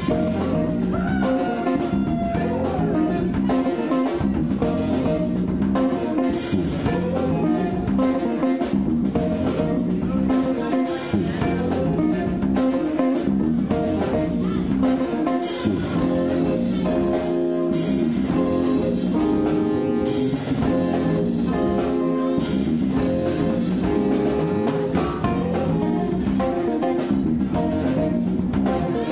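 Instrumental funk band recording: guitar over bass and drum kit, playing steadily, with a bright cymbal-like splash every few seconds.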